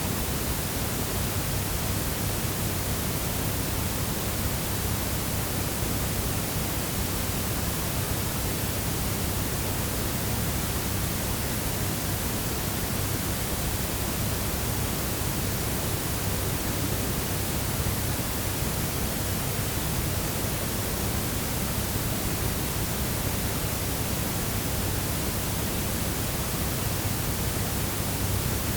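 Room tone of a quiet house: a steady, even hiss with a low hum underneath, unchanging throughout.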